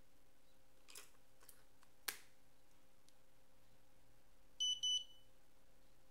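Soft clicks and one sharp snap as AA batteries are loaded into a Yongnuo YN-565EX speedlite, then, a couple of seconds later, two short high beeps in quick succession as the flash powers on. The double beep is the one this faulty unit gives before it hangs, with no zoom motor movement and unresponsive buttons.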